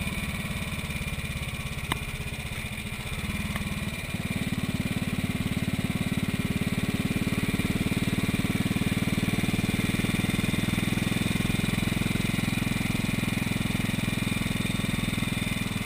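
1956 Moto Guzzi Falcone's 500 cc horizontal single-cylinder four-stroke engine running steadily under way. It is eased off for the first few seconds, then pulls harder and louder from about four seconds in.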